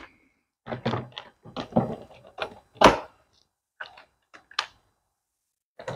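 Access panel cover of a Briggs & Stratton Q6500 inverter generator being fitted back onto the housing: a run of knocks and clicks as it is pushed into place, the loudest knock about three seconds in.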